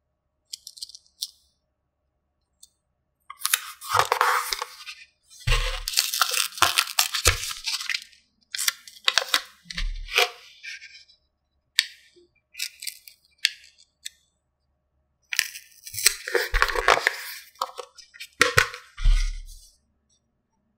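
Small plastic toy pieces and packaging being handled: irregular bursts of rustling and crinkling with clicks and a few soft knocks.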